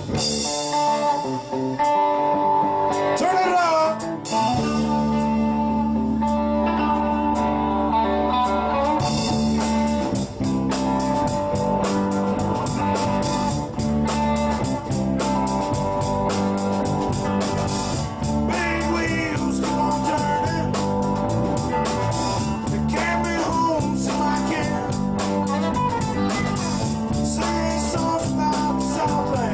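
Rock band playing an instrumental break: an electric guitar plays lead lines with bent notes over bass and a steady drum beat.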